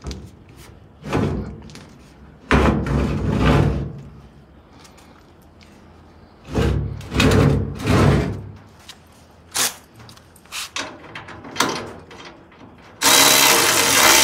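Loud metal clunks, bangs and clatter as a steel Mustang fuel tank is worked into place against a truck frame, with a few sharp knocks. About a second before the end, an air ratchet starts running steadily, tightening the tank's mounting bolts into the frame.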